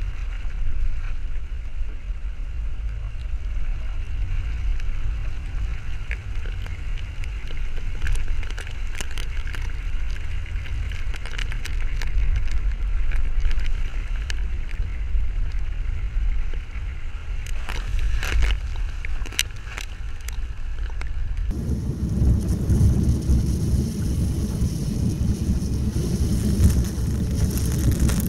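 Jeep driving on an off-road trail: a steady low rumble of engine and drivetrain, with wind on the microphone and scattered sharp ticks. About three-quarters of the way through, the sound changes abruptly and becomes louder and noisier.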